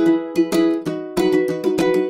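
Background music: a light, upbeat tune of plucked, strummed string chords.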